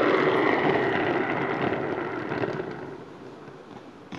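Homemade cardboard-box toy train sliding across a tiled floor: a rough scraping rush that starts loud and fades out over about three seconds as it slows to a stop.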